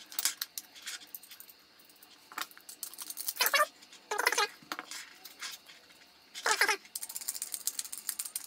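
Screwdriver turning screws into a turret security camera's housing, heard as short bursts of fast clicking with small knocks of the parts being handled in between.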